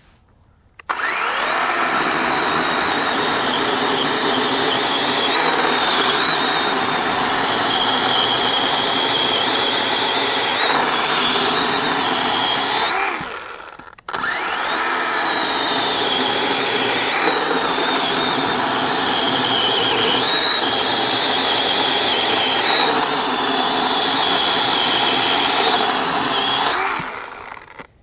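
DeWalt 20V MAX XR brushless cordless chainsaw running and cutting through a log, two cuts one after the other with a short break about halfway through. It gives a high electric whine that sags in pitch at moments as the chain bears into the wood.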